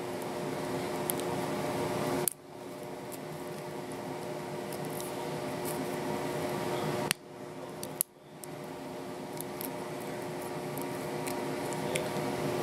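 Steel scissors clicking and scraping against an aluminium soda-can pull-tab as it is trimmed to a point, with a few faint sharp clicks over a steady hum of room noise. The background cuts out abruptly twice, once about two seconds in and again for about a second just past the middle.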